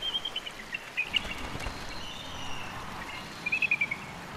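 Bald eagle's high, chittering call: scattered short piping notes at the start, then a quick run of notes that falls slightly in pitch about three and a half seconds in, over a steady background hiss.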